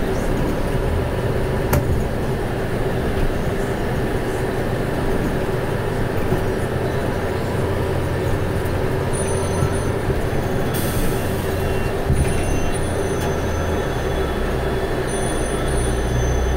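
Wood router in a pantorouter jig running steadily with a constant whine, its bit cutting a round tenon on the end of a square wooden stick.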